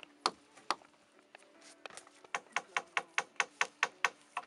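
Rapid sharp taps of a hammer on a wooden log frame: a few single knocks, then a fast even run of about five a second for a couple of seconds before they trail off.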